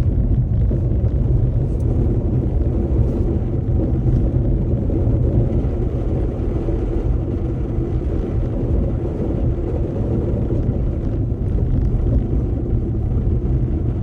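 Car driving, heard through a dash-mounted camera inside the cabin: a steady low rumble of engine and road noise with no changes or distinct events.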